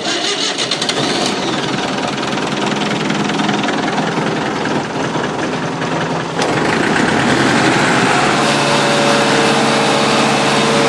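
Mechanical diesel engine cranked by its starter through a remote start switch, turning over for about six seconds before catching with a sharp click, then running and settling into a steady idle. It cranks and starts now that a bad chassis ground, which was dropping 6 volts, has been replaced.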